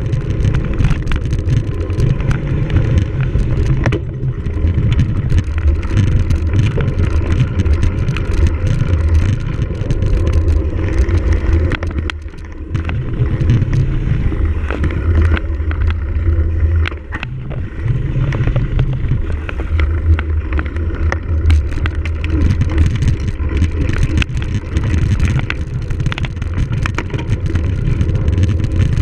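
Wind buffeting the microphone of a camera riding on a cyclocross bike, with tyre noise and frequent small rattling knocks from the bike over rough ground; it eases briefly twice.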